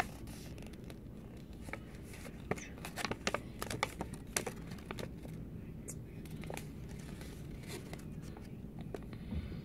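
Paper crinkling and rustling as an opened Shopkins blind-bag packet and its folded paper collector's list are handled, in short crackles that cluster a few seconds in.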